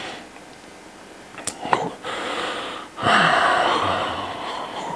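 A man draws a breath and then lets out a long sigh that slowly trails off, a pause for thought in mid-answer.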